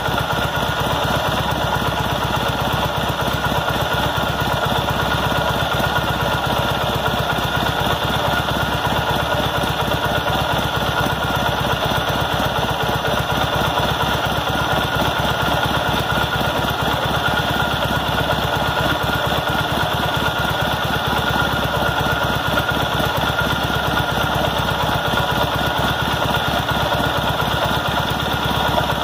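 Cub Cadet 1882's Kohler M18 air-cooled opposed-twin engine idling steadily, an even run of firing pulses with no change in speed.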